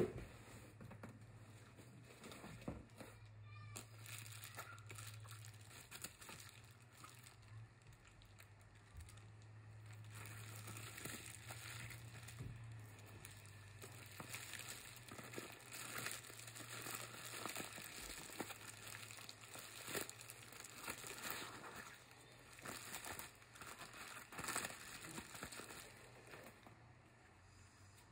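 Bubble wrap and plastic packaging rustling and crinkling in irregular handfuls as a wrapped item is unwrapped by hand, over a low steady hum.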